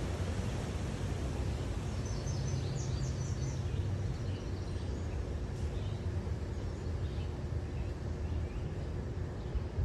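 Car rolling slowly along a gravel road: a steady low rumble of engine and tyres. A bird chirps a quick run of high notes about two to three seconds in.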